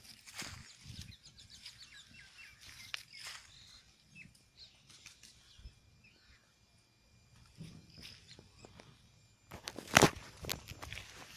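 Outdoor rural ambience: small birds chirping, with scattered clicks and knocks and a louder burst of clattering about ten seconds in.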